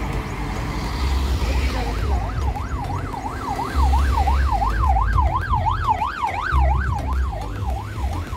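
A vehicle siren wailing in fast rising-and-falling sweeps, about three a second, starting about two seconds in, over the low rumble of cars passing close by.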